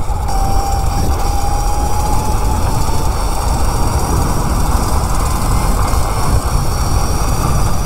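Kunray 72-volt 3000-watt electric mini bike motor whining under throttle, one thin tone slowly rising in pitch as the bike gathers speed, over heavy wind rush on the microphone.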